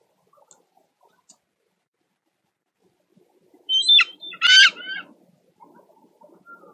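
Bald eagle calling at the nest: two short, high-pitched calls about half a second apart, close to the microphone, over faint rustling in the nest.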